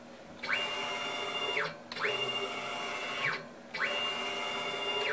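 Z-axis stepper motor of a 6040 CNC router jogging the spindle head three times in quick succession. Each move is a whine that rises in pitch, holds steady for about a second and falls away. With its speed setting turned down, the motor moves without stalling.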